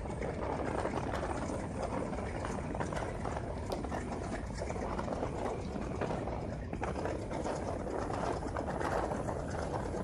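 Passenger train coach running at speed, heard from its open doorway: a steady rumble with a fast, even rattling clatter of wheels and running gear.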